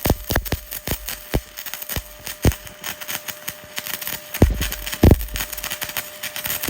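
Stick welding arc crackling and sputtering: a steady hiss full of irregular sharp pops, a few of them louder, over a faint steady hum.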